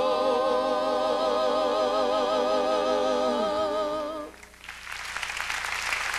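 A male singer holds a long final note with wide vibrato over a held chord, ending about four seconds in. After a brief pause the audience starts applauding.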